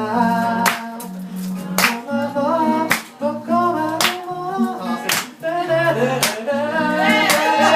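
Live acoustic song: guitar with a singing voice, and a sharp clap-like hit about once a second keeping the beat.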